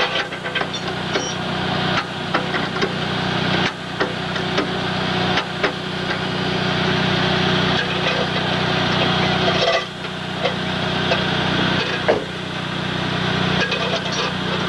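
A vehicle engine idles steadily under repeated clicking, knocking and scraping as a tow-dolly tie-down is worked tight. The scraping swells and breaks off every couple of seconds.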